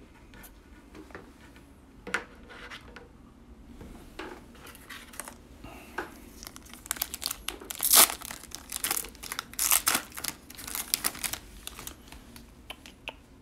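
Wrapper of an NBA Hoops basketball card pack being handled, then torn open and crinkled by hand. Faint rustling comes first, then a run of loud crinkling tears in the second half, loudest about eight seconds in.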